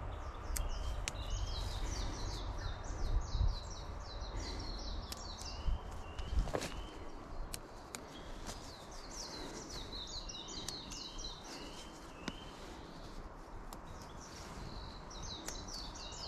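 A songbird singing fast runs of repeated high notes in three phrases a few seconds apart. Under it come low rustling and a few sharp snaps or knocks, the loudest about six and a half seconds in.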